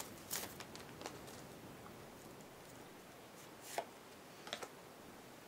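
Faint handling of an opened Pokémon card booster pack and its cards: a few brief, soft ticks and rustles over quiet room tone.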